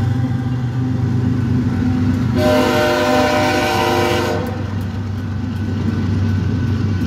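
Diesel freight locomotive's horn sounding a blast of about two seconds, starting about two and a half seconds in, over the steady rumble of a passing BNSF intermodal freight train. The horn starts up again right at the end.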